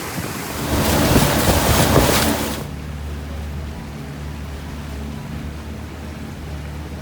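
Wind on the microphone and water rushing past a moving boat. About two and a half seconds in, the rush cuts off sharply, leaving a steady low engine hum.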